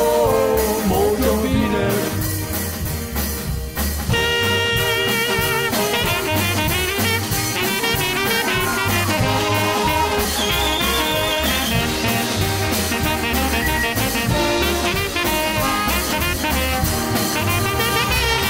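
Live rock'n'roll band playing an instrumental break: a horn section with saxophones over a steady bass and drum beat, a little quieter for the first few seconds before the horns come in fully.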